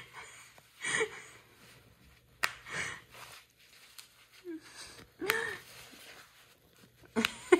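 Close breathy puffs and snuffles, one every second or two, with a short low grunt about five seconds in.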